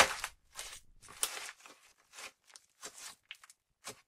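Pink putty slime squeezed and folded by hand: an irregular run of about ten short squishy pops and crackles, the first one sharpest and loudest.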